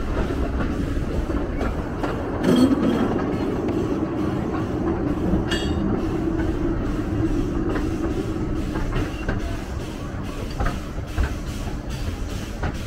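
2 ft narrow gauge train running along the track with a steady rumble and clatter of the wheels over the rails. There are two brief sharp sounds about two and a half and five and a half seconds in, and a few clicks near the end.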